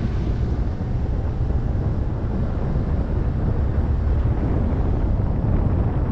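2004 Ford Focus running, a steady low rumble of engine and road noise with wind buffeting the microphone.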